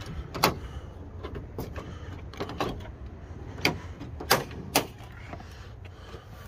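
Honda Odyssey minivan's front door being unlatched by its outside handle and swung open: a sharp latch click about half a second in, then a few more clicks and knocks about four seconds in.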